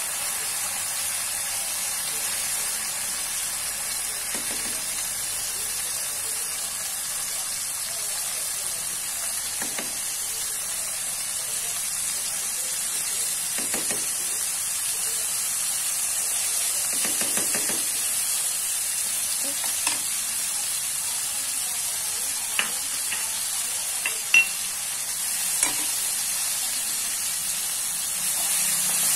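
Hot oil sizzling steadily in a wok as dried anchovies and freshly added ground chili paste fry. A few sharp ticks sound in the last third.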